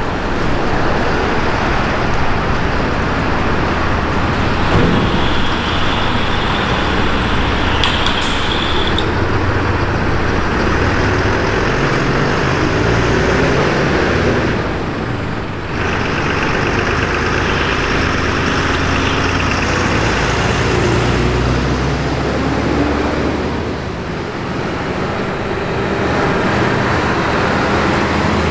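Heavy fire-engine diesel engines running and moving off, with a short high squeal about eight seconds in.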